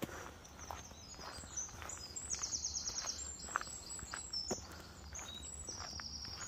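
Footsteps crunching on a gravel path at a steady walking pace, with a high, rapidly trilling bird song above them.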